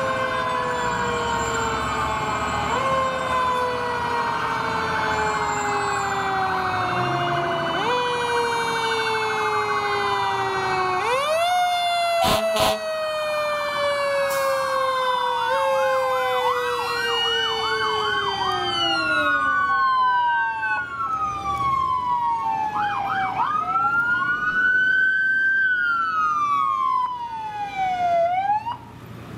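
Several emergency-vehicle sirens overlapping as fire engines and other emergency vehicles drive past, mostly long wails that rise sharply and fall slowly, broken by runs of fast yelp. A brief sharp click comes about twelve seconds in.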